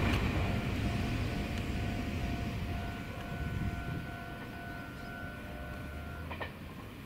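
Meitetsu electric train rumbling away after passing through the station, its noise fading steadily. A steady high tone sounds over it and cuts off with a click about six seconds in.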